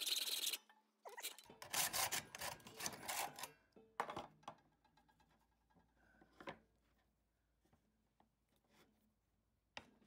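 Hacksaw cutting through a large brass nut, a steady rasp that stops abruptly about half a second in. Then about two and a half seconds of irregular rubbing and scraping, and a few faint clicks after that.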